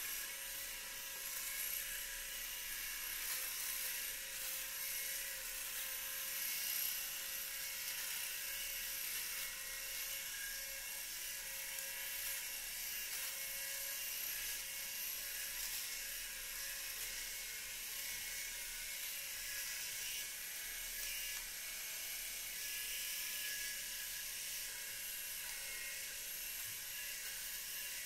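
Electric shaver running steadily with a high-pitched whine, worked over the chin and neck in touch-up passes to catch the last prickly spots.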